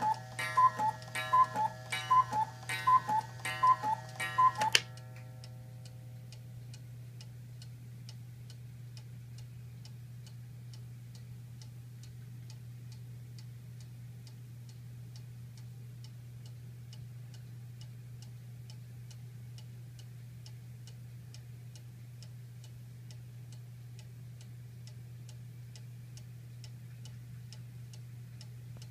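Small carved deer-head cuckoo clock calling the hour: its last few two-note cuckoo calls stop abruptly about five seconds in. After that the pendulum movement ticks steadily.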